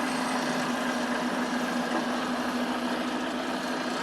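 Engine idling steadily, with a constant low hum and no change in speed.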